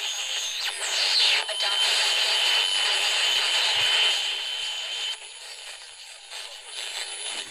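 Static hissing from the small speaker of a Murania one-transistor AM radio kit as it is tuned between stations. A steady high whistle comes in about a second in and cuts off about five seconds in, the kind of squeal the builder keeps for gain on faint stations.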